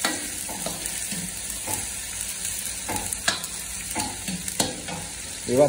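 Onions and tomatoes sizzling in a large karahi while a long metal ladle stirs them, with several sharp clinks and scrapes of the ladle against the pan.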